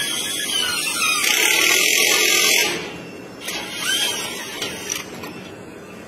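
Cordless power tool with a geared clamp head running for about a second and a half, turning a threaded sleeve coupler onto steel rebar, then stopping. A few light clicks follow as the tool is handled.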